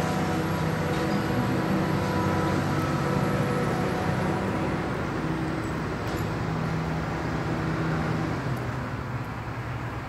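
Hitachi Zaxis 350 high-reach demolition excavator's diesel engine and hydraulics running steadily, with a low drone and a faint whine above it, easing off slightly near the end.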